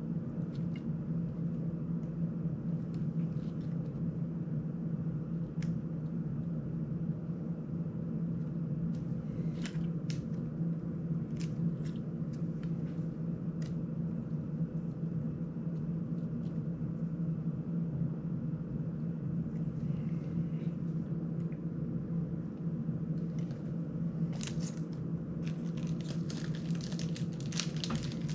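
Small clicks and taps of hands working on a small FPV drone's frame and parts, over a steady low hum in the room; a denser run of rustling clicks comes near the end.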